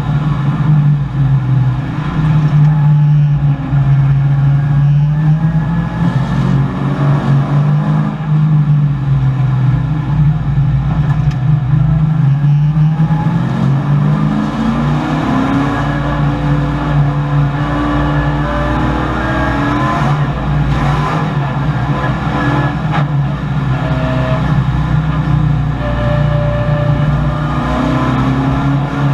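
1984 Chevrolet Camaro race car's V8 engine, heard from inside the cabin, running hard at a steady pitch and then climbing in pitch about halfway through as it accelerates.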